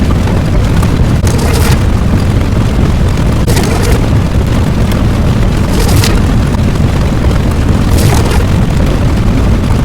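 Loud, continuous deep rumble, a sound effect of the explosion or eruption kind, with a short hissing flare roughly every two seconds.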